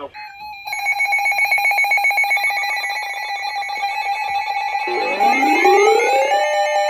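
Emergency Alert System attention signal: a harsh, steady two-tone alert tone sounding from about a second in. About five seconds in, a repeating rising synthesized sweep is layered over it.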